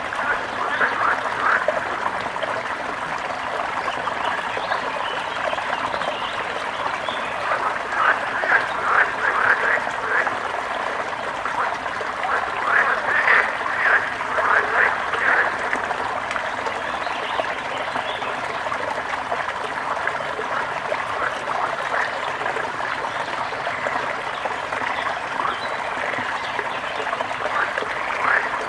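Water trickling steadily, with several bursts of rapid, repeated animal calls, each burst lasting a second or two.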